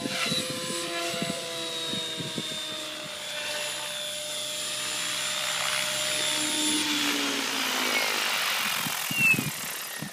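Thunder Tiger Raptor E720 electric RC helicopter in flight: a motor whine of several steady tones over rotor noise. It grows louder as the helicopter comes in close, and is loudest near the end.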